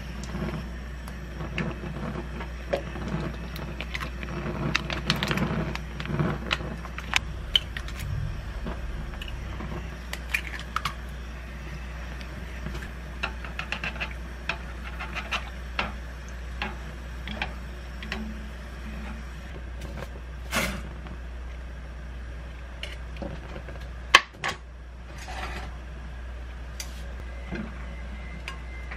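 Cooking sounds at a gas stove: scattered clinks and taps of a ladle and chopsticks against a saucepan of boiling broth as eggs are stirred in, over a steady low hum. One sharp knock stands out late on.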